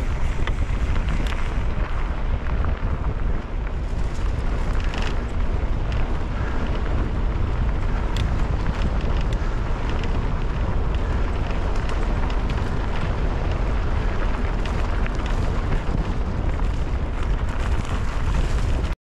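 Wind buffeting a helmet-mounted GoPro at speed on a Pivot Firebird mountain bike, over the tyres rolling on gravel and dirt, with scattered clicks and rattles from the bike. It cuts off suddenly near the end.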